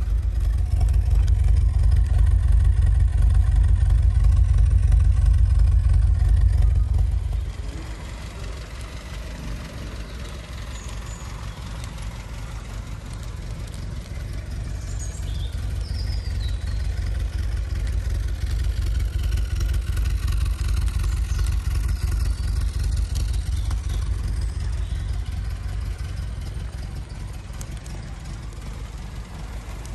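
Austin Mini 1275 GT's 1275 cc A-series four-cylinder engine idling with a steady low rumble. It is loud for the first seven seconds, then drops suddenly to a quieter, even idle.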